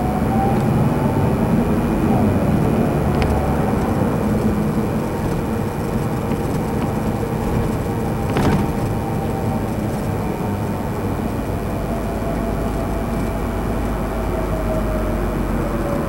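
Steady engine and road rumble heard from inside a moving tour bus, with a faint drifting whine and one short click about eight seconds in.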